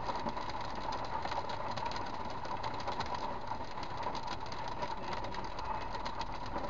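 Rain pelting the car's windshield and roof, heard from inside the cabin: a dense patter of many small hits over a steady hum.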